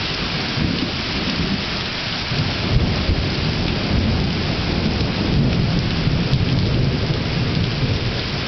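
Heavy rain pouring steadily, with a long low rumble of thunder that builds from about three seconds in.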